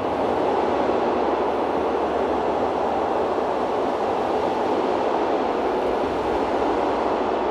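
Steady rushing wind noise on the microphone of a GoPro Hero8 carried aloft by an FPV drone flying into a strong wind.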